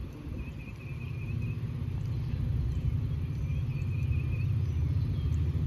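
Low diesel locomotive rumble growing steadily louder as the train approaches the crossing. Faint high chirps come in short groups over it.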